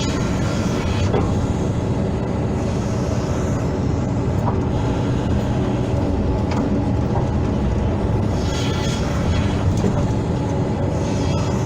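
Hydraulic excavator's diesel engine running steadily under working load, with the drone of its hydraulics. A higher hiss swells up briefly about two-thirds of the way in and again near the end.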